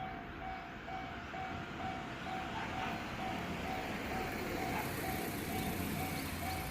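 Japanese level-crossing warning bell ringing, an even electronic tone about twice a second. Under it the rumble of a passing vehicle grows louder from about three seconds in.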